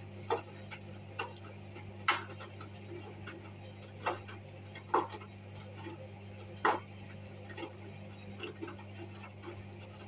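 Hoover front-loading washing machine tumbling a wash load in sudsy water: irregular short clacks and knocks as the load drops against the drum, over a steady low hum.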